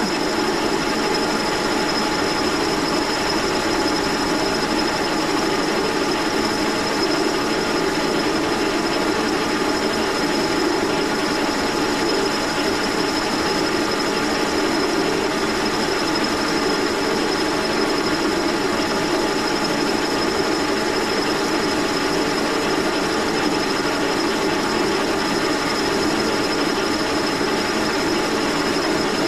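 Brown & Sharpe No. 2 Plain horizontal milling machine running steadily, its arbor-mounted cutter milling a hard cast crank handle held in a vise. An even, unchanging cutting noise with a constant thin high whine.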